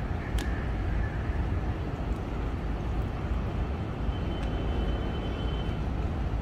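Steady low rumble of city background noise, with a sharp click about half a second in and a faint thin high tone for a second or two past the middle.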